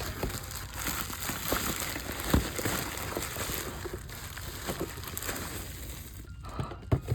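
Packaging crinkling and rustling as a parcel is handled and opened, with a couple of knocks, one about two seconds in and one near the end.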